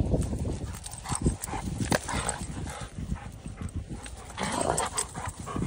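Two Dogo Argentinos play-fighting: dog growls mixed with the scuffling and knocking of their paws on dry grass.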